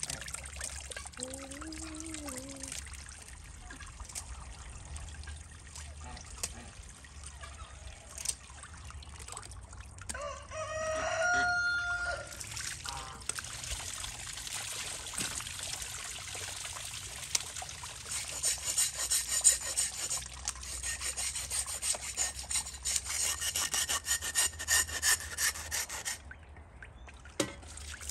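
Water trickling steadily, with a rooster crowing once about ten seconds in. From about eighteen seconds, a rapid run of scraping strokes lasts some eight seconds.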